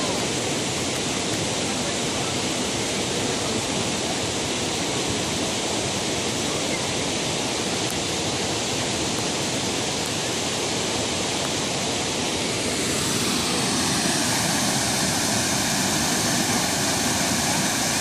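Steady rush of water flowing over the rocks of a shallow creek. About two-thirds of the way through, it changes and grows a little louder into the fuller rush of a low, wide waterfall close by.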